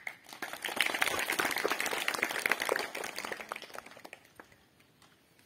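Applause from a seated crowd of schoolchildren clapping, building about half a second in and dying away by about four seconds.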